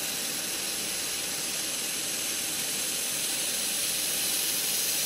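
xTool MetalFab handheld laser welder running a bead along 1/8 inch aluminum plate, a steady crackling hiss of the weld and spatter that holds even throughout.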